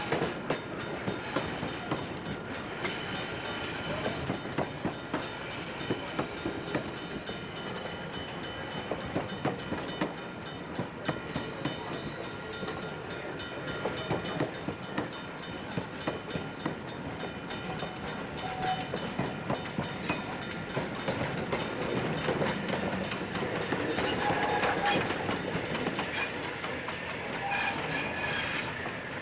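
Train rolling past: the steel wheels of passenger coaches click steadily over rail joints, with thin high tones ringing over the rumble.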